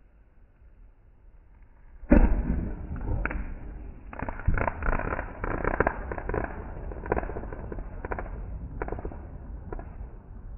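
Fireworks: a single loud bang about two seconds in, then a dense run of crackling pops for several seconds that thins out toward the end.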